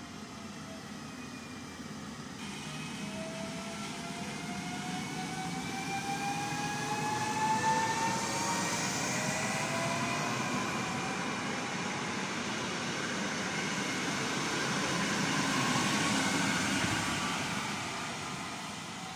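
Electric multiple unit pulling through, its traction motors whining in several tones that rise steadily in pitch as it speeds up, over the rumble of wheels on rail. The sound swells loudest about halfway in and again near the end as a train passes close by.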